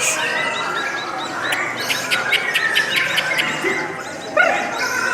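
Lovebirds chattering: a dense, continuous run of high chirps, trills and quick clicking notes, with one louder harsh call about four seconds in.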